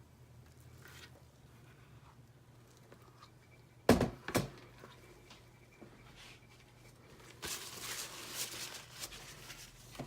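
Containers and utensils handled on a work table during soap making: two sharp knocks about half a second apart a few seconds in, then a couple of seconds of rustling and scraping near the end.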